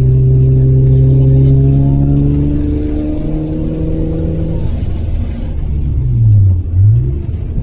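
Turbocharged 13B rotary engine of a modified Mazda RX-7 FD3S pulling under load, heard from inside the car. Its pitch climbs slowly for about four and a half seconds, then the revs drop away, and near the end they dip and rise again.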